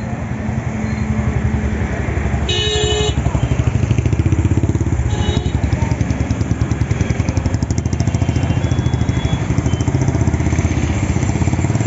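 A motorcycle engine running with a rapid, even beat, louder after the first few seconds. A short horn toot sounds about two and a half seconds in.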